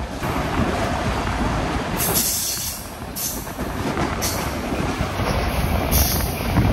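Passenger train running along the track, heard from an open window: a steady rumble of wheels on rails. From about two seconds in there are short bursts of hiss roughly once a second.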